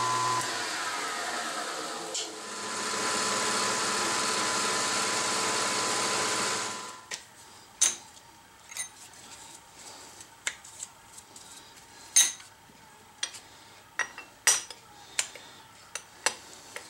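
A milling machine's spindle motor spins down with falling pitch. A few seconds of steady machine noise follow, then sharp metal clinks and knocks as an aluminium workpiece and steel parallels are handled and set in the steel milling vise.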